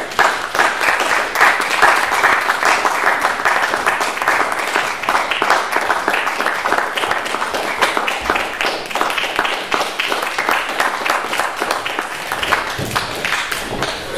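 Audience applauding: dense clapping that eases off somewhat over the second half.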